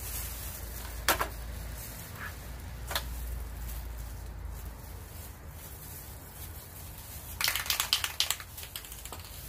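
Handling noise of a plastic-gloved hand wiping wet spray paint off a portable gas burner with a cloth over newspaper: a few sharp clicks in the first three seconds, then a brief flurry of rapid crackles about three quarters of the way through.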